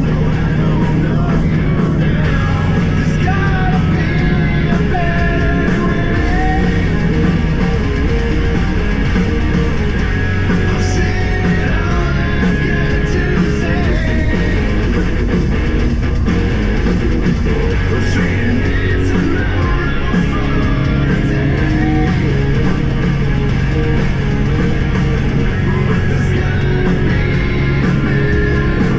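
Rock music with singing and electric guitar.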